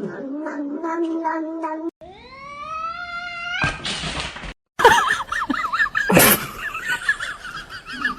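Cats yowling and meowing across several quick clips: a long drawn-out yowl held on one pitch, then after a cut a rising call and a short hissing burst, and after a brief break a higher, wavering call with one sharp loud noise about six seconds in.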